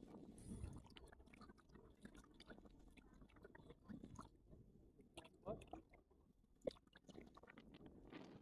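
Near silence: a faint low rumble with scattered soft clicks and crackles, two of them a little sharper about five and a half and near seven seconds in.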